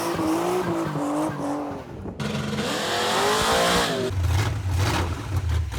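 Car engine revving with pitch swinging up and down, with a loud tire-squeal-like hiss in the middle, then settling into a low rumble about four seconds in.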